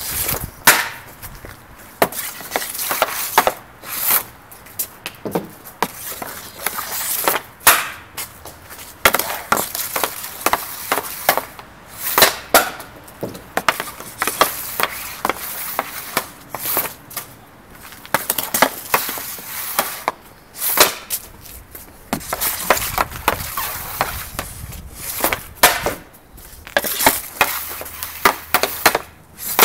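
Ice hockey sticks stickhandling and shooting pucks on a plastic shooting pad: a string of sharp, irregular clacks of blade on puck and blade on pad, with scraping as blades drag across the surface.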